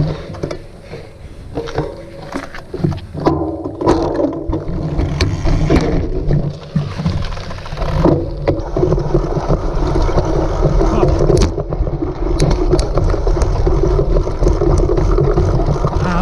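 Cyclocross bike ridden hard over rough ground: a continuous rumble and rattle with many scattered sharp knocks and clanks, steadier and louder in the second half.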